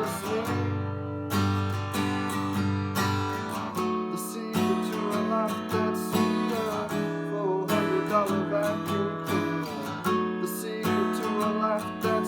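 Music: an acoustic guitar strummed in a steady rhythm, with a wavering melody line over the chords.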